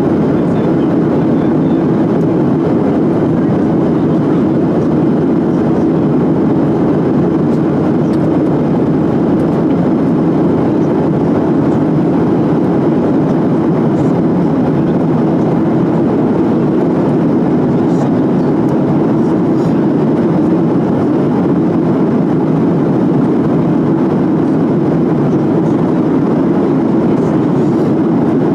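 Steady, unbroken noise of a jet airliner in flight, engines and rushing air heard from inside the cabin.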